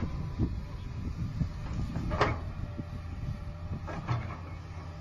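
A machine's engine running steadily, with several sharp metallic clanks and knocks over it, the loudest about two seconds in.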